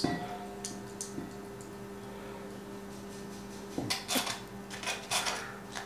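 A metal spoon scraping in a mesh tea strainer, pressing milkshake through into a glass bowl: a few short scrapes in the second half, over a steady low hum.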